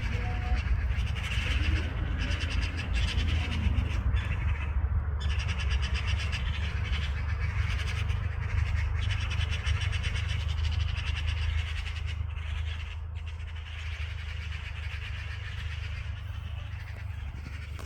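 Magpies chattering: harsh, rapid rattling calls, denser and louder in the first half and easing off toward the end, over a steady low rumble.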